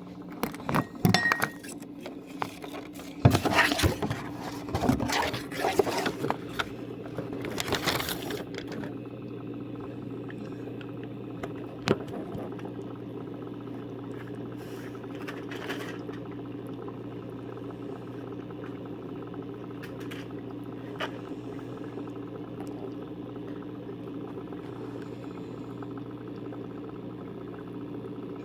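A quick run of hard clinks and knocks for the first eight seconds or so, then a steady low hum with an occasional faint click.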